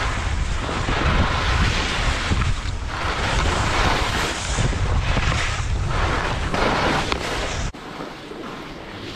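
Wind buffeting the microphone: a heavy low rumble under rushing noise that swells and fades every second or two, dropping suddenly to a quieter hiss near the end.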